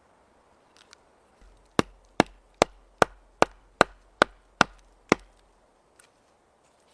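A blade chopping into wood: nine quick, evenly spaced sharp strikes, about two and a half a second, then it stops.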